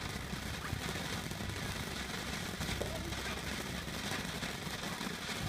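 Handheld firework fountain spraying sparks: a steady hiss with faint scattered crackles.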